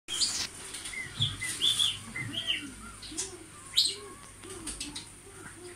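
Pet budgerigar singing: a busy run of short chirps, warbles and whistled notes, with a sharper squawk about four seconds in. A low, repeated droning sound runs underneath.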